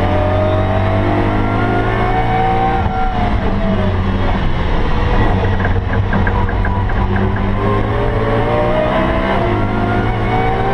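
BMW E92 M3's 4.0-litre V8 under hard acceleration, heard inside a stripped, roll-caged race cabin: the revs climb, drop about three seconds in, then climb steadily again from about seven seconds on.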